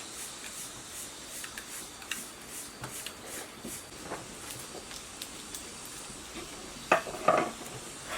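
Light metallic clinks and taps of tools and metal parts being handled over a steady hiss, with two louder clanks about seven seconds in.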